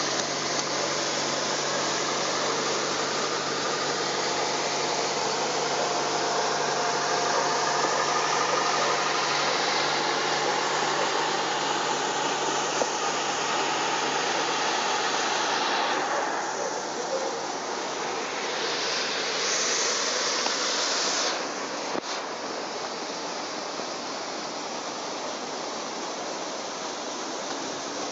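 2014 Kawasaki Z800e's inline-four engine running steadily through its silencer with the dB-killer baffle removed, under a loud steady rushing hiss. The engine's low note weakens about halfway through.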